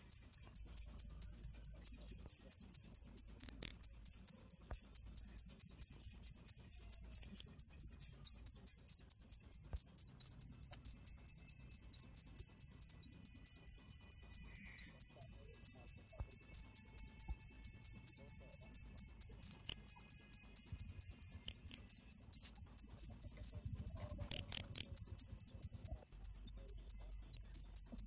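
Cricket chirping loudly and steadily, a fast, even train of short high-pitched chirps, with a brief break about 26 seconds in.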